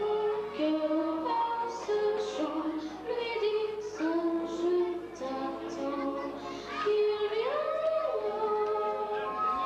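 A girl singing a song into a handheld microphone, a melodic line of long held notes with slides between them.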